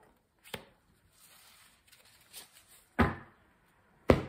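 Tarot cards drawn from a spread deck and laid down on a cloth-covered table: a light tap, faint rustling, then two firm thumps of cards and hand on the table near the end.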